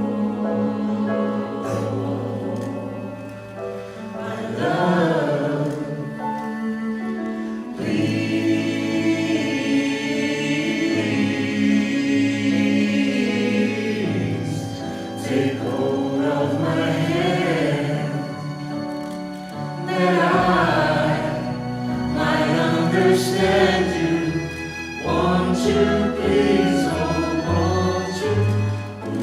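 Music: a choir of voices singing over sustained instrumental accompaniment.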